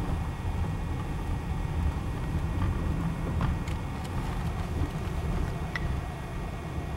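Car driving slowly, heard from inside the cabin: a steady low rumble of engine and tyres, with a few faint clicks partway through.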